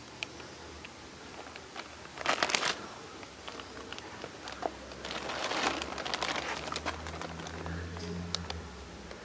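Plastic bag crinkling and rustling, in a short burst about two seconds in and a longer one from about five to seven seconds, with scattered small crackles between.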